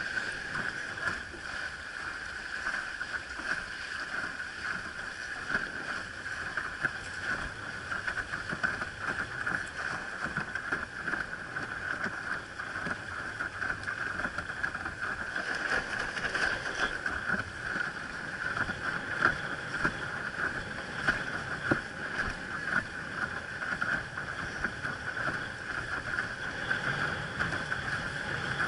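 Water rushing and slapping against a windsurf board as it sails through choppy water: a steady hiss broken by frequent small splashes.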